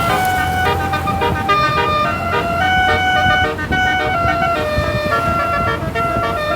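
Basuri (telolet) bus horn playing a melody as a run of held notes that step up and down in pitch.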